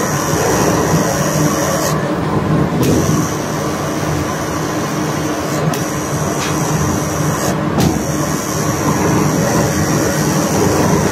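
Steady drone of heavy diesel machinery running, a low, even engine hum with a constant pitch.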